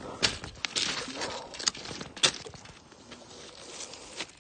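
Footsteps crunching and scraping over rocks and gravel, with a handful of irregular sharp knocks, the loudest a little over two seconds in.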